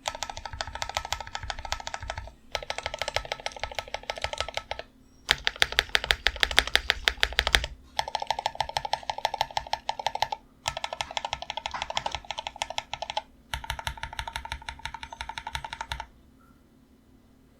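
Fast typing on a Freebird60 mechanical keyboard with lubed, filmed Tecsee Carrot switches on a POM plate, in six quick bursts of rapid keystrokes about two and a half seconds each, separated by short pauses. The typing stops about 16 seconds in. A faint steady hum runs underneath.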